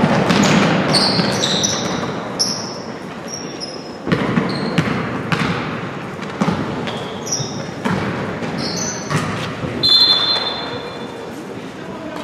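Basketball being played on a hardwood gym floor: sneakers squeak in many short, high chirps and the ball thuds as it is dribbled, with voices in the background.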